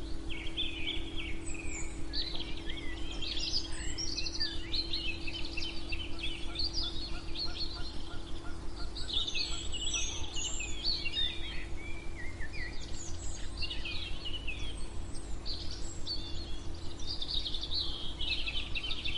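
Ambient white-noise bed, heavy in the low end with a faint steady hum, under a busy chorus of several songbirds chirping and trilling. A run of quick repeated lower notes joins in briefly midway.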